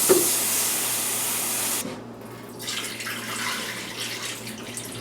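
Kitchen tap running water, most likely into the rice pot, for about two seconds and then shut off abruptly. Quieter sloshing water sounds follow.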